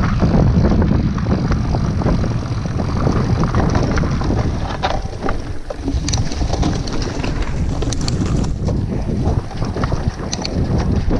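Wind buffeting the microphone of a mountain bike riding at speed, over tyre noise on a sandy trail, with scattered clicks and rattles from the bike.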